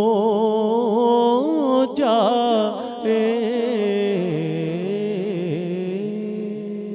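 A man's voice singing an Urdu naat into a microphone, drawing out long ornamented notes with a wavering pitch, trailing off near the end.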